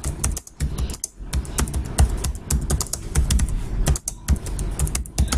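Typing on a laptop keyboard: a quick run of keystrokes, pausing briefly about a second in and again about four seconds in.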